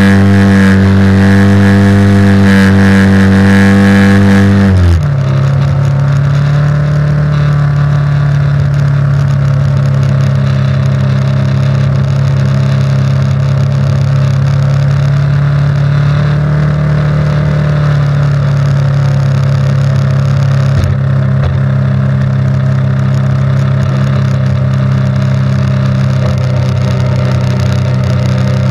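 An engine running loud and steady at high speed, then dropping to a lower steady speed about five seconds in and holding there.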